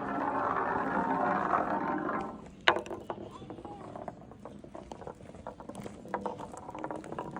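A dense steady rattle stops about two seconds in. A sharp knock follows, then irregular light clicks and knocks of a small mechanism, wood on wood.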